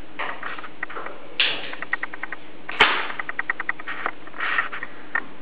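Gas hob burner being lit: runs of quick, light ticking from the igniter, one sharp click a little under three seconds in, and two short hisses as the gas catches.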